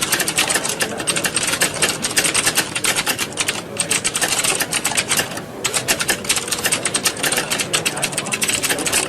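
Many computer keyboards being typed on at once: a dense, continuous clatter of overlapping key clicks, thinning briefly twice.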